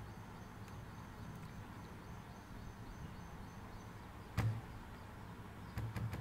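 Computer mouse clicks over a low steady hum: one sharp click with a dull thud about four seconds in, then two quick clicks near the end.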